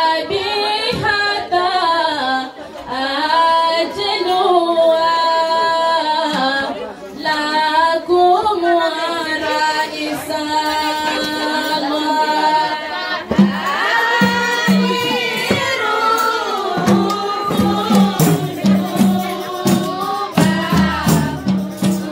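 Women singing an Islamic devotional song together, led by an amplified solo voice. About two-thirds of the way through, hand frame drums and jingling tambourines come in with a steady beat.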